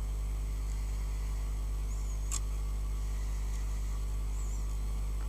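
Steady electrical mains hum, with a single faint click about two seconds in.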